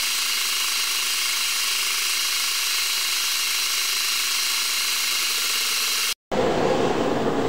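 Manual metal lathe running under power with the cutting tool taking a facing cut across the end of the spinning workpiece: a steady, high-pitched machining noise. About six seconds in it cuts off abruptly and comes back lower in pitch and slightly louder.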